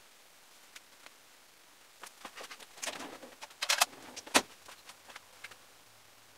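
Light clicks and a short rattle of small hard objects being handled, bunched between about two and five seconds in with the sharpest click near four seconds, and a few scattered ticks before and after.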